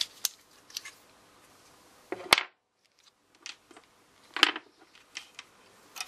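Small plastic-and-metal clicks and knocks as a loose NiMH AAA cell and a single-cell plastic battery holder are handled and the cell is pressed into the holder. Two louder sharp knocks stand out, one near the middle and one about three-quarters of the way through.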